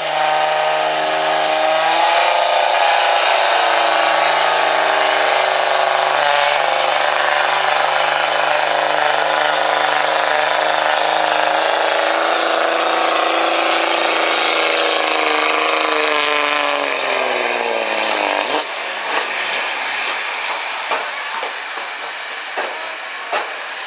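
Dodge Ram pickup's common-rail turbo-diesel pulling a weight sled at full throttle, held at high, steady revs for about sixteen seconds. Its pitch then drops away over a couple of seconds as the run ends and the throttle comes off, leaving quieter track noise with a few knocks.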